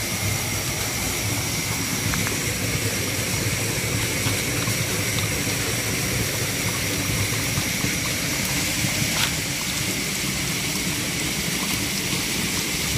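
Shallow stream flowing steadily through undergrowth, with a steady high-pitched drone of night insects over the water and a light click about nine seconds in.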